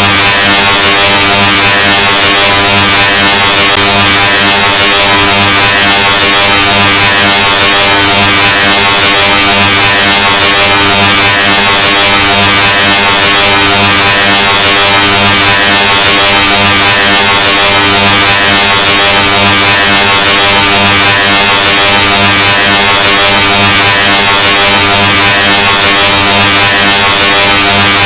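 The 'Loudness 2.0' sound effect: a very loud, heavily distorted buzzing tone with a dense hiss over it, held steady at full volume without a break.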